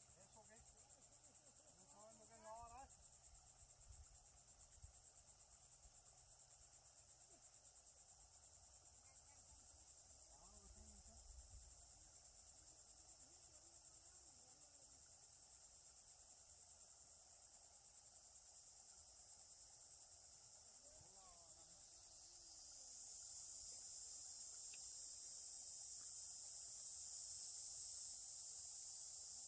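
Faint, high-pitched insect trilling, a rapid even pulsing. A second, louder trill joins about three quarters of the way in.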